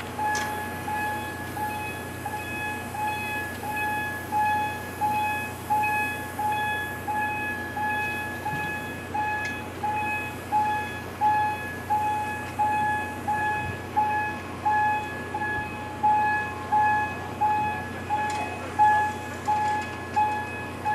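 Electronic warning bell of a locomotive turntable beeping steadily as it turns, about one and a half beeps a second and growing louder, over a low steady hum.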